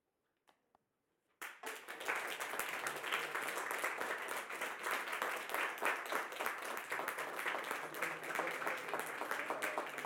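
Audience applauding. A short hush with a couple of faint clicks, then the clapping breaks out suddenly about a second and a half in and carries on steadily.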